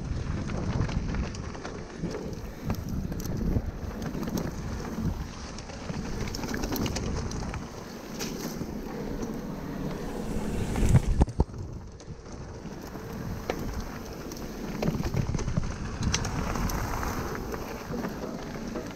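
Mountain bike rolling fast down a loose gravel and stone trail: tyres crunching over the stones and the bike rattling over bumps, with wind rushing over the microphone. A louder clatter of knocks comes about eleven seconds in.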